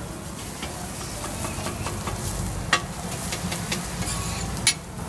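Ramly burger patties sizzling on a flat-top griddle: a steady frying hiss, with two sharp clicks, one about halfway through and one near the end.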